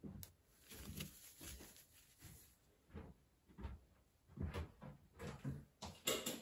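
Faint, irregular handling noises: gloved hands, tweezers and a pink tool knocking and rubbing lightly against a nail tip as stickers are placed and pressed down, with the loudest rustle about six seconds in.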